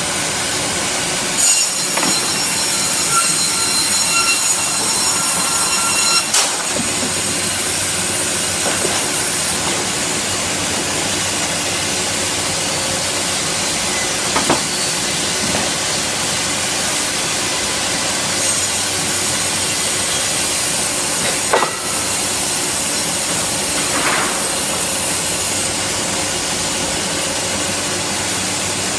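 Automatic CNC sawmill line running with a steady machine noise and hiss. Twice, a high whine of several tones rises over it for about five and about seven seconds, the saw cutting. Several sharp knocks are heard, the loudest about two-thirds of the way through.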